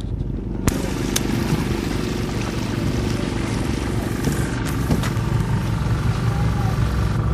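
Boat engine running steadily with a low hum, heard from on board, with a few brief clicks.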